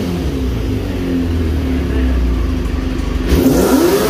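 Kawasaki 400cc four-cylinder motorcycle engine, swapped into a quad bike, idling and then revved once near the end, its pitch rising sharply before starting to fall back.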